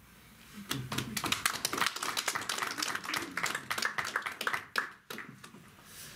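A small audience applauding, a few seconds of scattered, uneven clapping that thins out and stops about five seconds in.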